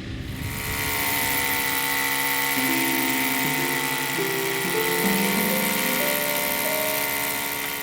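A machine running, heard as a steady rushing noise with a high whine. It cuts in suddenly and fades near the end, over soft background music of notes climbing in steps.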